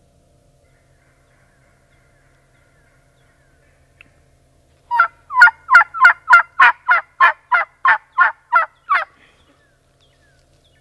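A series of about thirteen loud turkey yelps, evenly spaced at roughly three a second and lasting about four seconds, starting about five seconds in.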